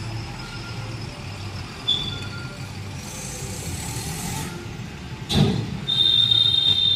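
Low, steady rumble of an idling car and surrounding traffic in a toll-plaza queue, heard from inside the car. A hiss rises about three seconds in, a sudden thump comes a little past five seconds, and a steady high tone sets in about six seconds in.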